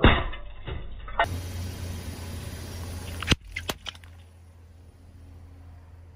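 A car tyre rolling over and crushing small skull-shaped shot cups: a loud crack as they give way, then about a second of crackling and crunching. After that a car engine runs low and steady, with two sharp cracks a little past the middle.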